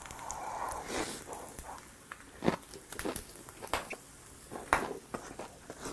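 Close-up chewing of a mouthful of kimchi wrapped around grilled pork belly: irregular crunches and mouth smacks, the sharpest about two and a half and about four and three-quarter seconds in.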